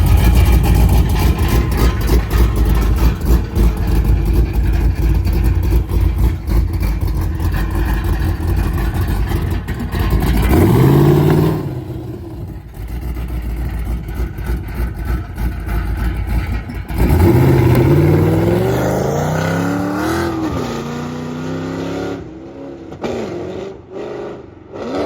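Pontiac G8 engine with a freshly installed big aftermarket camshaft, idling with a choppy, lopey rhythm. It is revved up and falls back about ten seconds in, then revved again, rising and falling, about seventeen seconds in before settling.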